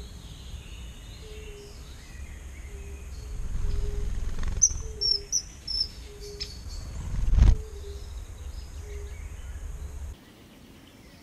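Wetland ambience: faint, short, low hoots recur about once a second. About five seconds in come three high, sharp bird calls. A low rumble of wind on the microphone swells and ends in a thump about seven seconds in.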